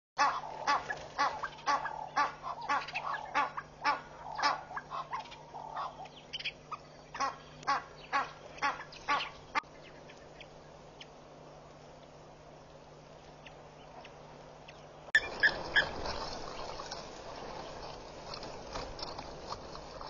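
A bird honking harshly over and over in a rapid series, about two or three calls a second, for the first half, then quiet. About 15 seconds in the sound cuts abruptly to wind noise, with a few more calls just after the cut.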